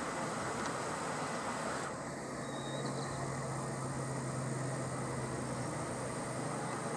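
A steady low engine hum over a constant hiss, like a vehicle engine idling. The hum grows a little stronger about two seconds in.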